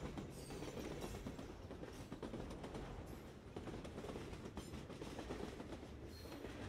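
A train running along the track: a steady, mostly low noise that goes on without a break.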